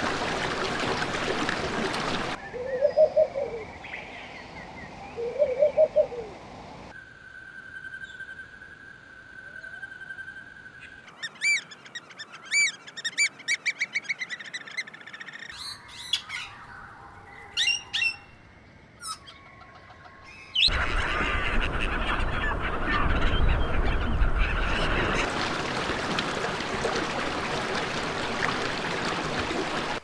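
A string of different bird sounds cut together: two low, harsh calls about three and five seconds in, then a rapid series of high chirping notes and a few sharp single chirps in the middle, and a dense, busy stretch of outdoor noise with bird calls in the last third.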